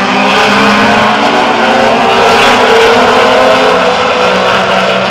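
A race car's engine running at high revs as it passes along the circuit, growing louder to a peak about halfway through and then fading.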